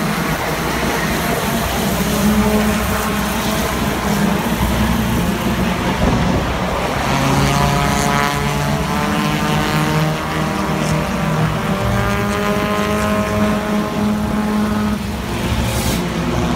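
Race car engines running on the oval track, their pitch slowly rising and falling as the cars go around.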